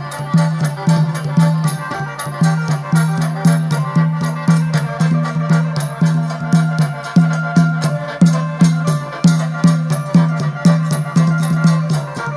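Mor lam sing band playing an instrumental passage: a steady kick-drum beat about twice a second under fast cymbal or shaker ticks and held melodic lines.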